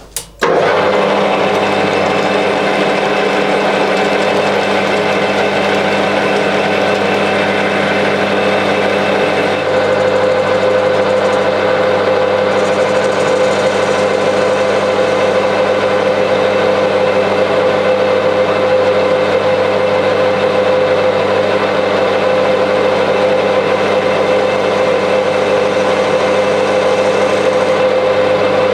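Metal lathe starting up right at the start and then running steadily, its motor and gearing giving a steady whine with several tones, while the insert tool faces off the end of the burner blank. The sound steps up slightly about ten seconds in.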